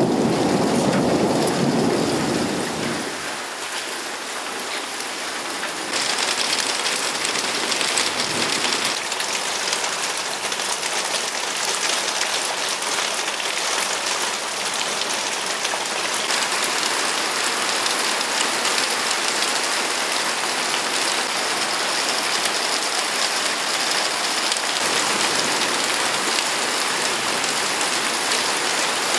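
Heavy thunderstorm rain falling steadily into puddles and onto pavement, a dense hiss. A low rumble of thunder dies away over the first three seconds, and the rain grows louder and brighter about six seconds in.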